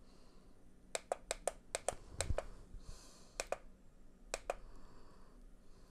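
Push buttons on a small handheld control pad clicking as they are pressed: a quick run of about six clicks, then two pairs of clicks, with a soft low thump in between.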